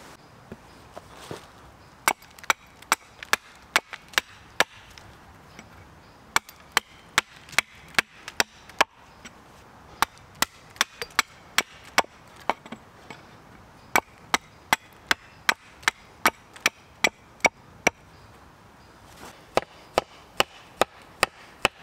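Small axe chopping a stick on a wooden chopping stump: crisp, sharp strikes about two to three a second, in runs broken by short pauses.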